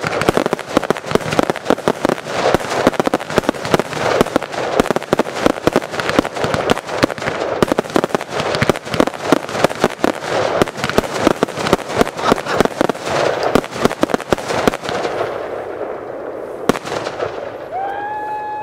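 Fireworks barrage: rapid, dense shots and bursts of crackling from rising comets and aerial shells, thinning out about fifteen seconds in and dying away near the end.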